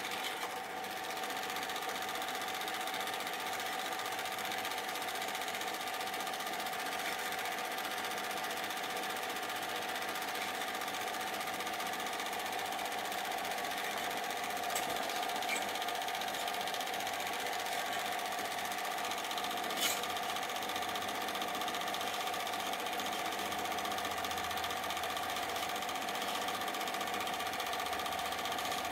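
Super 8 film projector running: the steady mechanical whir and rattle of its motor and film-advance mechanism, with a few brief clicks around the middle.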